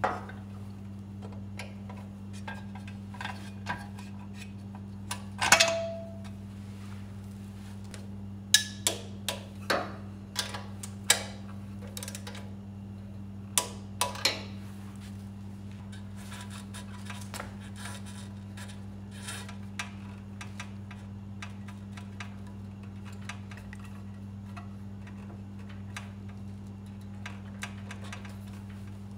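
Ratchet wrench ticking and metal parts clinking as a generator airbox backplate is bolted onto the engine. A few sharp metallic knocks stand out, one with a brief ring about five seconds in, over a steady low hum.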